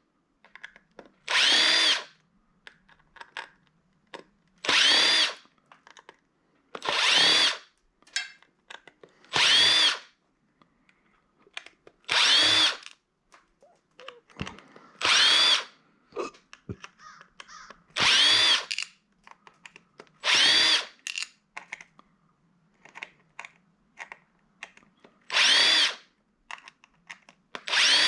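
Power drill backing out screws in about ten short bursts, each rising in pitch as the motor spins up and falling as it stops. Small clicks and rattles of parts and screws come between the bursts.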